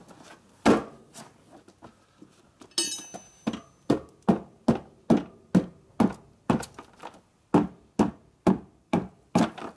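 Hammer blows driving a tire onto a wire-spoked motorcycle rim. There is a single blow, then a ringing metal clink, then a steady run of about two strikes a second.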